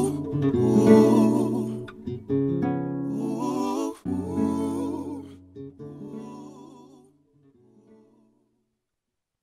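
Background music, fading out and ending about seven to eight seconds in.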